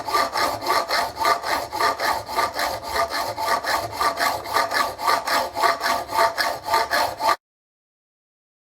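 Hand saw cutting through the thin metal end of a roller extension pole in quick back-and-forth strokes, about four a second. It cuts off suddenly near the end.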